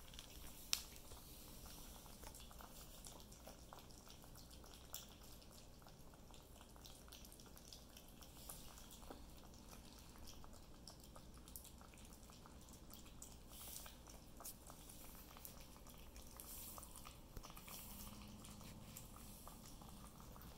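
Faint wet smacking and lapping of three Yorkie-poo puppies eating raw food from a bowl, many small irregular ticks, with one sharper click about a second in.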